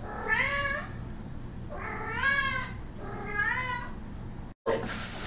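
A cat meowing three times, each meow rising and then falling in pitch.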